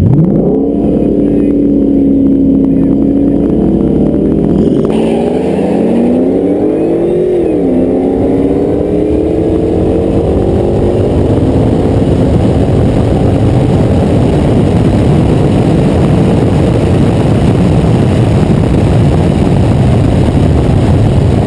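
2012 Ford Mustang GT's 5.0 Coyote V8 at full throttle on a drag pass: the revs rise off the line, hold fairly level for a few seconds, climb again and drop sharply at a gear change about seven seconds in, then climb slowly. A rushing wind noise on the outside-mounted microphone builds as the car picks up speed.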